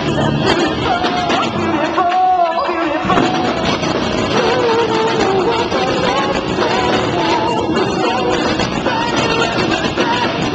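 Rock band playing live and loud: a male vocalist singing into a microphone over electric guitar and the full band, as picked up by a pocket camcorder's built-in microphone. About two seconds in the low end drops out for roughly a second before the band comes back in full.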